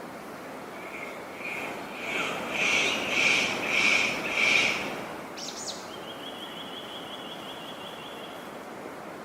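A bird calling: a run of about six evenly spaced, piping notes that grow louder, followed by a quick upward note and a thin buzzy trill, over a steady outdoor hiss.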